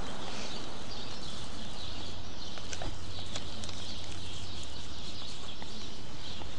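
Steady outdoor background noise: an even hiss with a low hum under it and a few faint ticks.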